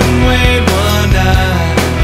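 Rock music with drum hits over a steady bass.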